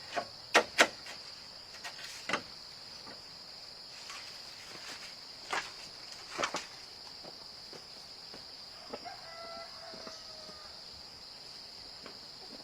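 Steady high-pitched chirring of insects, typical of crickets, with a handful of sharp knocks over it in the first few seconds, the loudest two close together about half a second in. A short, slightly falling call sounds about nine seconds in.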